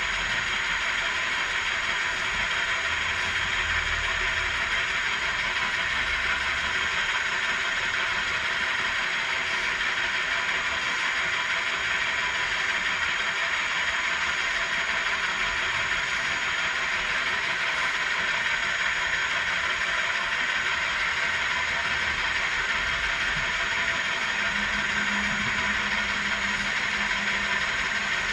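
Milling machine running, its spiral-fluted end mill taking a steady, continuous cut along the steady rest's base as the table feeds slowly. The cut is quiet, an even whirring hiss with no chatter or change in pitch.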